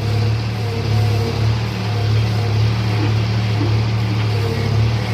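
John Deere 5310 tractor's diesel engine running steadily with a constant low hum.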